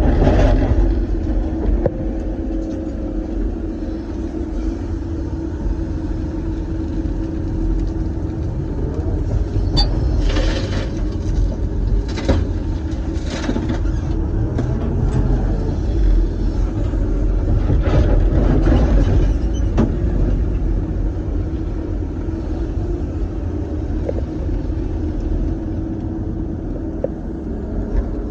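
Doosan DX420LCA excavator's diesel engine and hydraulics running steadily, heard from inside the cab, with a low rumble and a held hum. Several short knocks and rattles come around the middle.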